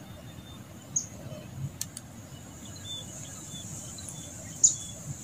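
Steady high insect buzz with short bird chirps over it, and a few sharp clicks, the loudest one near the end.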